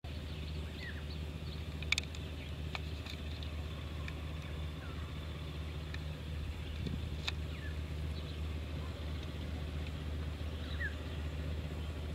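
Distant WDM-3A diesel locomotive, with its 16-cylinder ALCO engine, giving a low, steady drone as it hauls the train away. Faint bird chirps and two sharp clicks sit over it.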